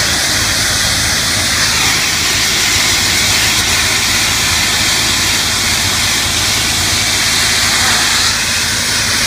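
Pressure washer running: a steady hiss of high-pressure water spray over the even drone of its engine.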